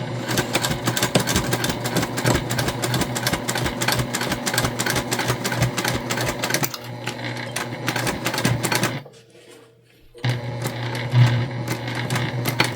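Sewing machine stitching a seam through several layers of fabric, a rapid even run of stitches over a steady motor hum. It stops for about a second near three-quarters of the way through, then starts stitching again.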